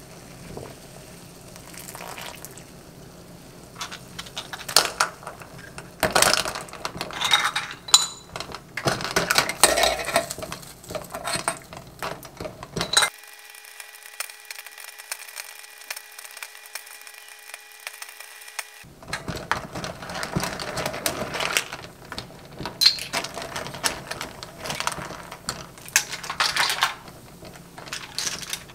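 Broth boiling hard in a stainless steel pot, bubbling and crackling irregularly, with chopsticks clattering against the pot. Near the middle it gives way for several seconds to a faint steady hum.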